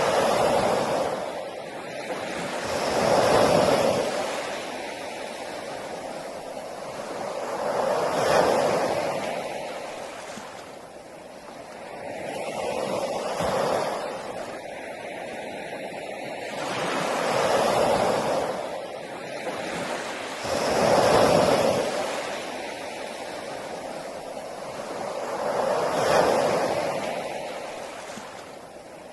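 Ocean waves breaking on a beach: a steady wash of surf that swells and fades every four to five seconds, about seven waves in all.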